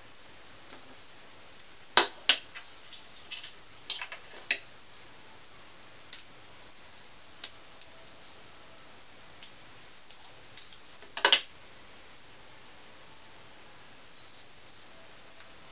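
Scattered sharp clicks and small snaps of water-pump pliers working a small 1:50 scale model excavator boom part. The loudest snaps come about two seconds in and again about eleven seconds in.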